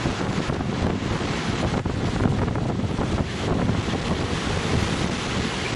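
Strong tropical-storm wind buffeting the microphone in uneven gusts, over heavy surf breaking along the beach.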